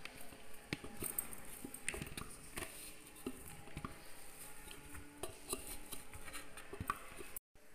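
Faint, irregular light clicks and taps of a utensil against plastic bowls as chopped boiled chicken is emptied out of a food chopper.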